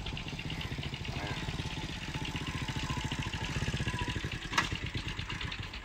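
Motorcycle engine running with a rapid, even putter that grows a little louder and then fades toward the end. A single sharp knock comes about four and a half seconds in.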